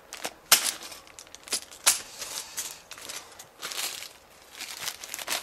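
Plastic zip-lock bags of LEGO pieces crinkling as they are handled, with the small plastic pieces shifting inside, in a run of short rustles.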